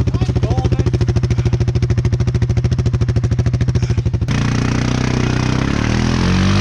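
ATV engine running at steady low revs with an even, fast pulsing beat, then the sound changes abruptly about four seconds in to the engine revving, its pitch rising.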